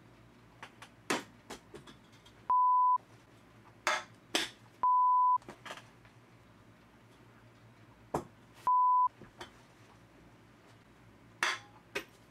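Three short censor bleeps, each a steady single-pitched beep of about half a second, covering swear words. Several short, sharp knocks and clatters come between them.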